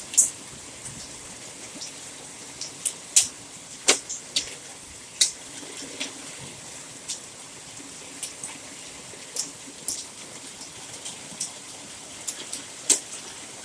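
Steady rain with scattered sharp ticks of hailstones striking hard surfaces, irregular and a few every couple of seconds: the tail end of a hailstorm, with only a little hail still falling.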